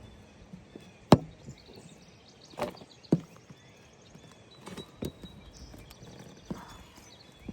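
A handful of sharp knocks and clunks of hard objects at uneven intervals, the loudest about a second in.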